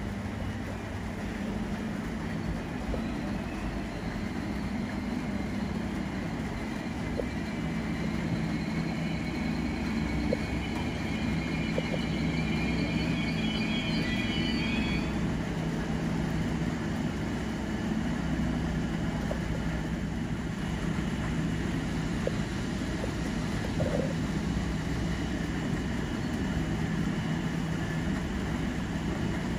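Hunter-class diesel railcar running into the station at low speed, its diesel engine making a steady low drone that slowly grows louder as it nears. A higher whine sounds for a few seconds in the middle.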